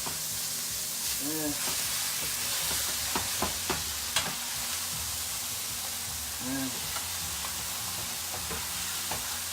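Chicken halves sizzling steadily in a hot pan with their braising marinade, with a few sharp clicks of a utensil against the pan about three to four seconds in.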